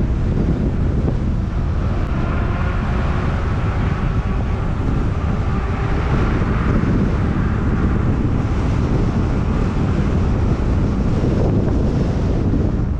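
Steady, loud wind buffeting the microphone, a continuous low rumble with no breaks.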